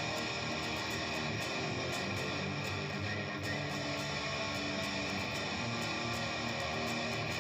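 Guitar-driven music playing at an even level, with no singing.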